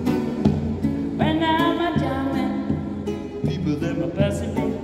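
Nylon-string classical guitar strummed in a steady rhythm, with a man singing over it from about a second in.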